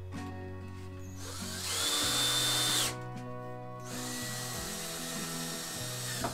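Cordless drill-driver driving screws into a door hinge in two runs. The first, about a second in, spins up to a high whine and holds for over a second. The second, from about four seconds in, is longer and lower-pitched and stops near the end. Background music plays under it.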